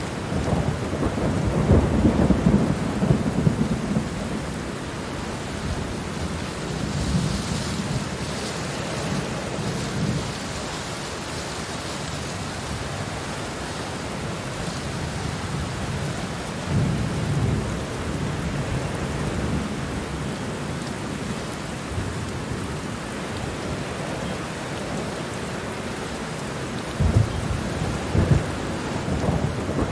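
Steady rain with low rumbles of thunder, which swell about two seconds in, again around seventeen seconds and once more near the end.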